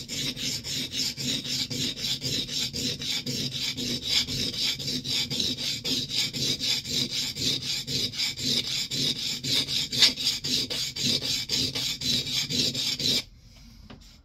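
Steel scrub plane iron being rubbed on a coarse Norton sharpening stone, a rapid, even rasping of side-to-side honing strokes on its cambered bevel. The strokes stop suddenly near the end.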